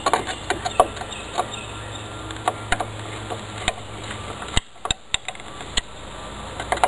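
Hand screwdriver driving a screw into a wooden deck post, with irregular short creaks and clicks as the screw turns and bites and the driver is regripped. The screw is being tightened home.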